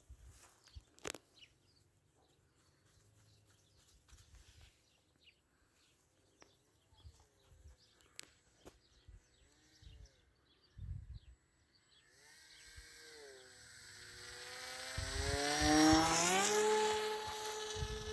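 Electric RC plane's A2212 brushless motor and 8x4 propeller buzzing in flight. It is faint at first, with its pitch rising and falling. From about two-thirds in it grows much louder as the plane comes close, the pitch sweeping up and then holding steady. Wind thumps on the microphone are mixed in.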